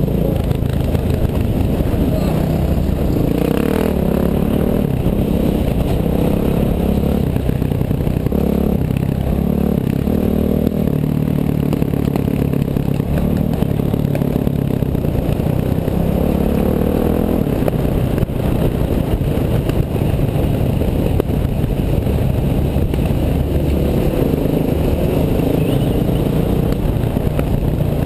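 Bulldozer engine running under varying load, its pitch stepping up and down as it works.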